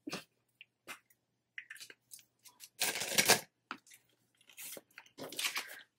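Hands handling a marker and a clear plastic binder on a desk: a few light clicks, then a short, loud rustling scrape and some softer rustles.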